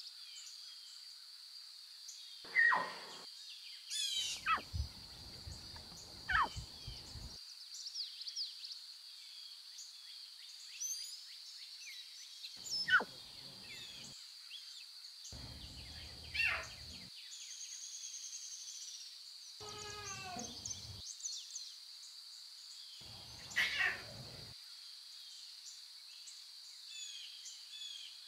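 Wild grassland ambience: a steady high insect buzz, with bird calls and several short, falling cries a few seconds apart.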